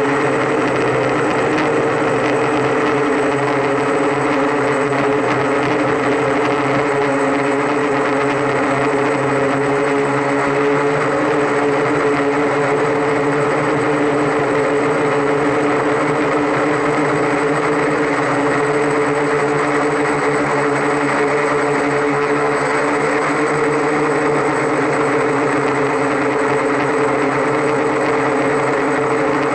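Octocopter's eight electric motors and propellers running steadily in flight, heard close up from the craft itself: a loud, even hum made of several steady tones with a rushing buzz above.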